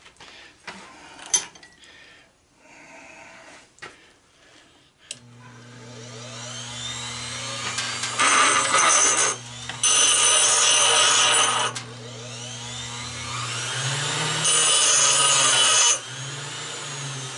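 A few light knocks of metal parts being handled, then about five seconds in an electric grinder starts and runs with a steady hum that builds. Three loud bursts of grinding follow as it cuts into a die-cast regulator part down to bare metal.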